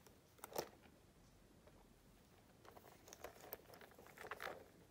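Faint handling sounds of a small leather pouch and its metal clasp and chain: a sharp click about half a second in, then scattered small clicks and rustles around three seconds and again near the end.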